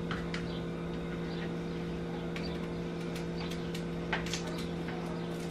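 A knife cutting and peeling a raw yam on a plastic cutting board: faint scattered cuts and taps, the clearest about four seconds in, over a steady hum.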